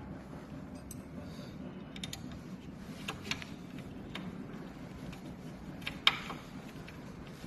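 Scattered small clicks and taps of hands handling the treadmill motor's wires and a plastic cable clip, with one sharper click about six seconds in, over a low steady hum.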